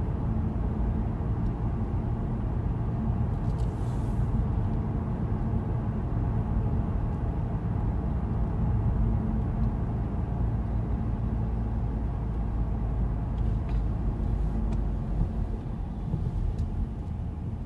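A car driving on a town road, heard from inside the cabin: a steady low rumble of engine and tyre noise, growing a little quieter near the end.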